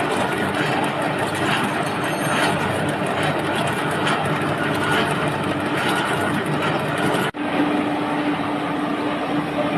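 Steady machine noise with a constant hum, broken by a sudden brief dropout about seven seconds in, after which it carries on much the same.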